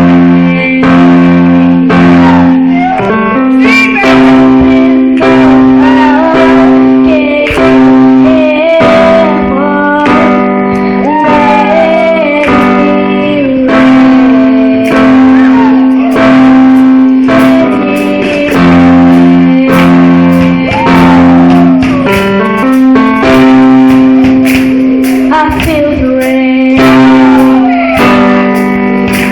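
Live praise-and-worship music: held chords under a steady drum beat, with a sung melody line gliding over it.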